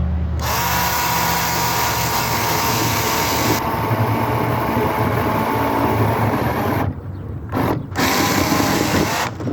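20-volt battery-powered chainsaw with a 10-inch bar running with a steady electric whine as its chain cuts through a log. It stops twice briefly near the end.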